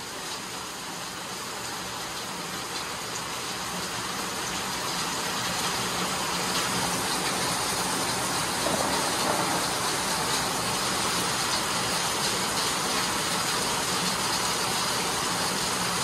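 Steady rain falling, an even hiss that grows louder over the first six seconds or so and then holds.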